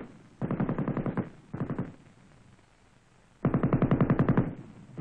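A 7.62 mm M60 general-purpose machine gun firing three short bursts of automatic fire, each a run of rapid, evenly spaced shots at about nine a second. The middle burst is the shortest, and there is a longer near-quiet pause before the last one.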